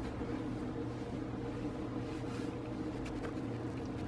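Steady low background hum, with faint soft rustles of hands pressing and kneading a crumbly cornstarch dough on a stone countertop, a couple of them about two and three seconds in.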